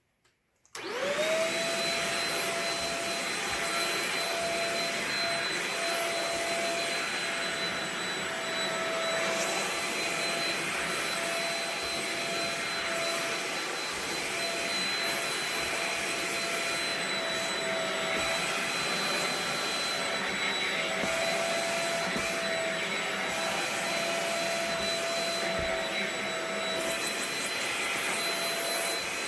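Shark Rocket TruePet stick vacuum switched on about a second in, its motor spinning up quickly and then running steadily with a whine over the rush of air.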